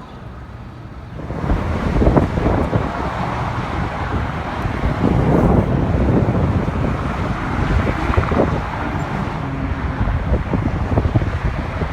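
Wind buffeting the microphone, a loud gusty rumble that comes up about a second in.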